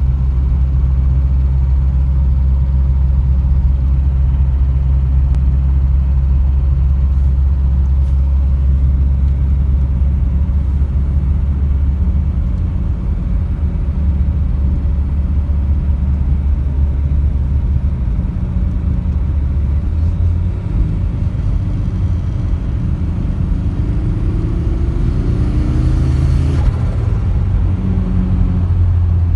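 Turbocharged Opel C20NE 2.0-litre four-cylinder engine running, mostly steady, its pitch rising in a rev a little before the end and then falling away sharply, with the turbo fluttering as the throttle closes.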